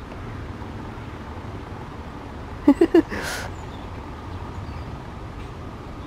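A steady low background rumble. About three seconds in, a person makes three quick short voiced sounds and then a breathy exhale.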